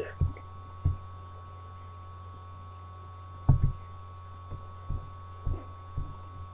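Steady low electrical hum with a thin higher whine above it, and a handful of soft, short low thumps, the strongest about three and a half seconds in.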